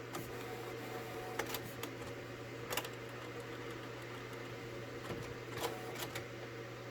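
Canon Pixma inkjet printer working with a steady low hum and a few sharp mechanical clicks. It has not yet pulled in the paper, because the top feed slot cover was left closed.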